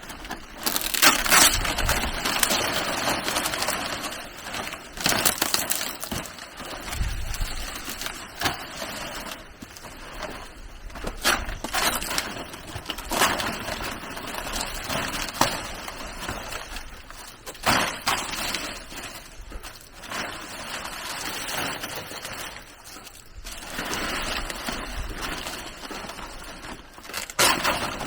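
Irregular rustling, crackling and scraping with a few sharp knocks scattered through, loudest in patches.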